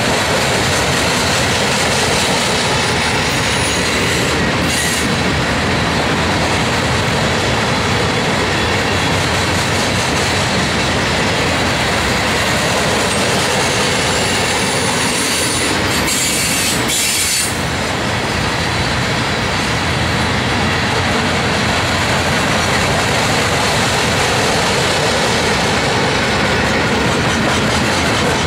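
Coal train cars rolling past close by: a loud, steady rumble and clatter of steel wheels on the rails, with a thin, steady wheel squeal above it.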